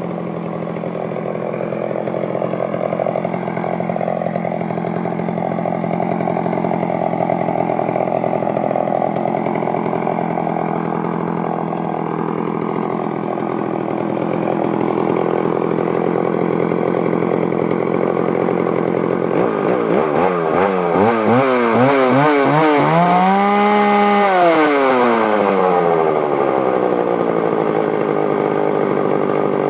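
Homelite 550 84cc two-stroke chainsaw running steadily, then blipped several times from about 20 s in. It revs up high and briefly about 24 s in, then slows back down to idle.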